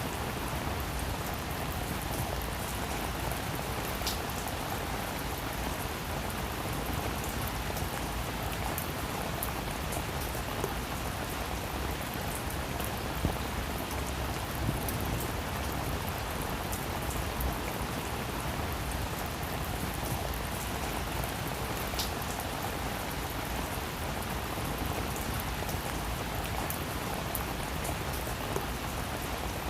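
Heavy rain falling steadily, a dense even hiss with individual drops ticking through it and a couple of sharper drop hits.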